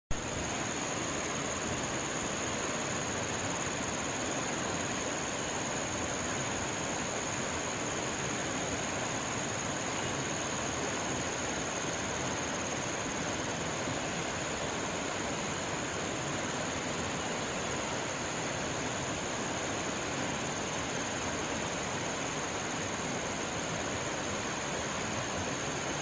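Steady rushing of river water, an even, unbroken noise, with a thin, constant high tone above it.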